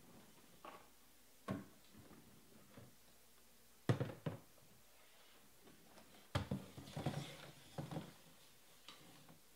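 Trading cards and their packaging handled on a tabletop: a few sharp taps and knocks, with a short spell of rustling and tapping in the second half.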